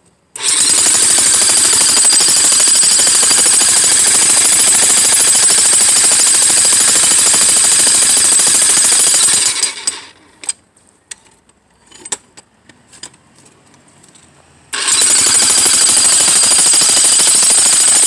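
Corded Bosch electric breaker hammer (jackhammer) chiselling out the concrete footing of a fence post, with a steady rapid hammering. It stops after about nine and a half seconds, leaving a few light knocks, and starts hammering again about fifteen seconds in.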